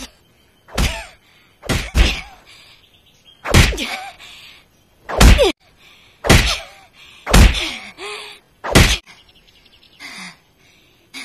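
Anime punch sound effects: about eight heavy fist blows landing on a body at irregular intervals, with short pained grunts after some of them.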